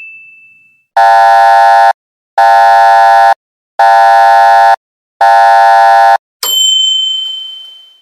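Alarm-type buzzer sound effect: four harsh, even blasts of about a second each with short gaps. Near the end comes a single bright ding that rings out and fades, and a ding from just before trails off at the start.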